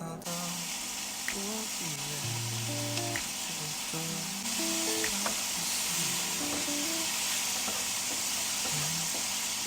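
Food sizzling as it fries in a pan, a steady hiss that grows louder about halfway through.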